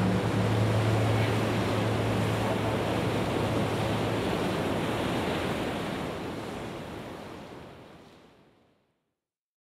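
An even rushing wash of noise like surf on a shore, with no tune in it. It fades out over several seconds to silence about nine seconds in.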